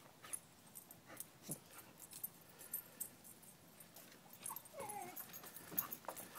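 Australian Labradoodle puppies at play giving a few short, faint whimpers and yips, the clearest a pair of falling cries a little past the middle, with light scattered ticks and rustles between them.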